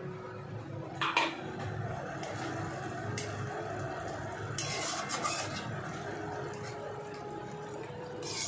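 Metal spatula stirring and scraping pointed gourds (potol) in masala gravy in a metal kadai, with a steady hiss from the cooking underneath. A sharp metal clink comes about a second in, and louder scrapes come around three, five and eight seconds in.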